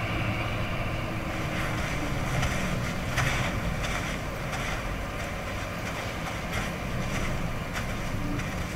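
Movie soundtrack played through home theater speakers: steady outdoor wind ambience with a few soft crunching footsteps on a path.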